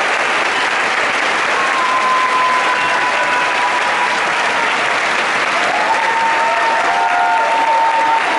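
Audience applauding steadily, with long held cheers sounding over the clapping.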